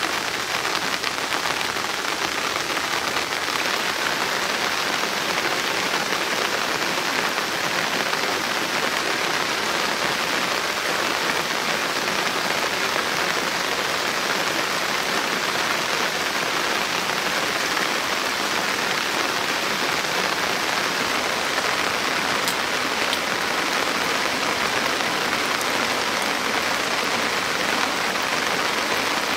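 Steady rain falling: an even, unbroken hiss with no single drops or knocks standing out.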